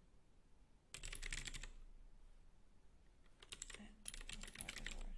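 Typing on a computer keyboard: a short run of rapid keystrokes about a second in, then a longer run in the second half.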